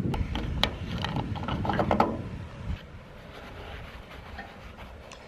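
Wind rumbling on the microphone with a few sharp clicks and knocks. After about three seconds it gives way to quieter handling sounds as a rag is pushed into a pickup truck's fuel filler neck.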